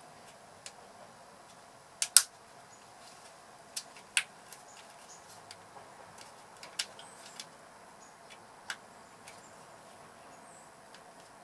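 Scattered sharp clicks and taps of a plastic engine-ECU wiring-harness connector being handled and its housing parts snapped together. The two loudest clicks come about two and four seconds in.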